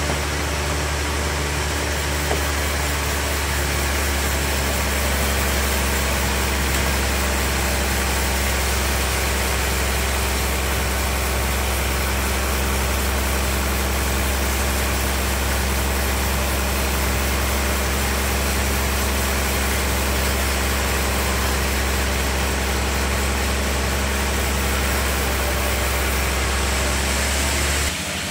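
Large sawmill band saw running and cutting lengthwise through a big trembesi log: a steady low motor hum with the blade's cutting noise over it. The hum stops abruptly near the end.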